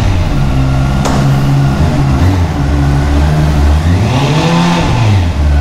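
Honda CBR650R's 649cc inline-four idling steadily through its stock exhaust, with one throttle blip about four seconds in that rises and falls back to idle.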